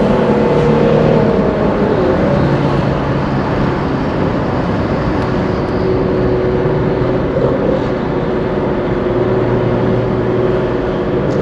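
Nissan GT-R R35's modified twin-turbo 3.8-litre V6 with bolt-on exhaust and intake parts, running steadily under light load while the car is driven. Its tone drifts slightly lower about two seconds in.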